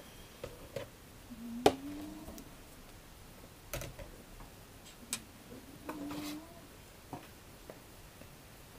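A cat making two short, low, rising mews, among a few sharp clicks; the loudest click comes about one and a half seconds in.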